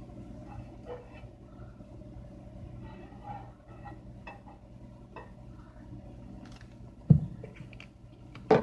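Steady low appliance-like hum with a few light clicks and knocks. Near the end come two loud bumps, about a second and a half apart, as the hand-held phone is knocked and moved.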